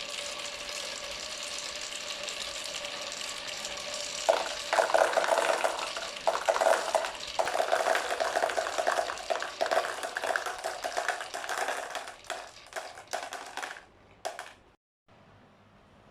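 Marbles rolling and clattering through a PVC pipe marble run, a steady rush that grows louder and rattlier about four seconds in. It thins into scattered clicks and stops a couple of seconds before the end.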